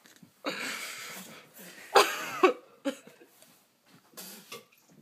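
A man coughing and gagging in rough heaving bursts, the loudest heave about two seconds in, with smaller ones after. He is retching after chugging two 24 oz cans of beer.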